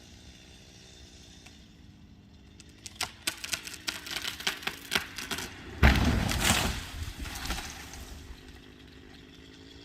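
A felled tree's hinge wood cracking and popping in a quick run of sharp snaps as the tree goes over, then a heavy crash about six seconds in as it comes down and strikes a shed, with branches rustling and settling for a couple of seconds after.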